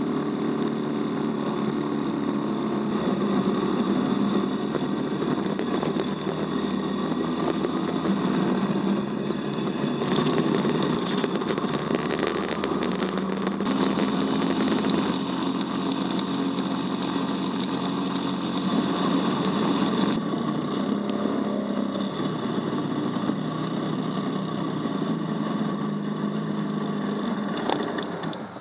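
Dune buggy engine running steadily, heard from on board, its pitch shifting up or down in steps a few times.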